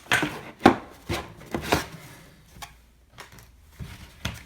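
Lock-set parts and packaging being handled and set down: a quick run of sharp knocks and clatters, loudest in the first two seconds, then fainter scattered taps.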